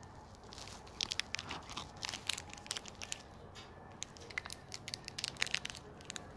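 Plastic candy wrapper crinkling and tearing as it is worked at by hand and struggled open, in a faint, irregular run of small crackles.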